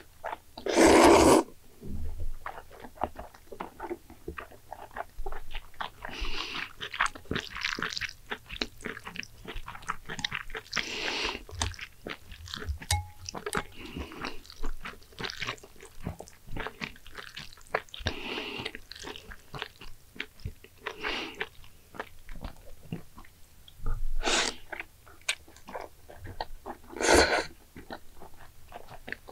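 A person eating close to the microphone: chewing with many small irregular clicks, broken by louder noisy bursts about a second long, the loudest near the start.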